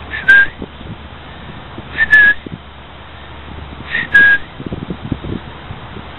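A person whistling the same short two-note call three times, about two seconds apart. Each call is a brief higher note stepping down to a slightly longer lower one.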